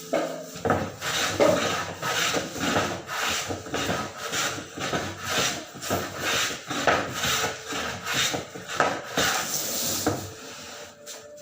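Rhythmic rasping, rubbing strokes by hand, about two a second, that stop about ten seconds in.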